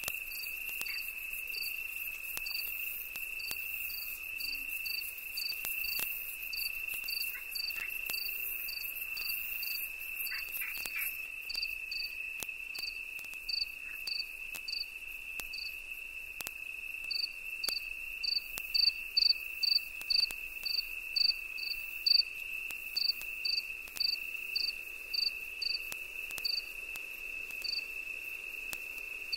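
Insects singing: one steady, unbroken high trill, with a second insect's short chirps about twice a second that grow louder in the second half.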